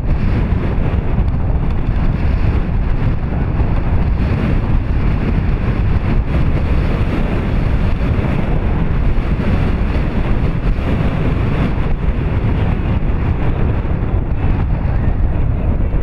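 Wind buffeting the microphone: a loud, steady low rumble without a break.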